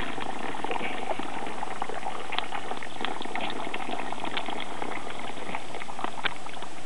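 Steady sizzling and crackling from a hot charcoal smoker, a dense run of small pops and hiss.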